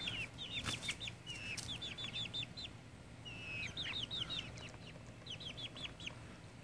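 Young Australorp and Cornish Cross chickens peeping: short runs of three to five quick, high peeps, repeated several times.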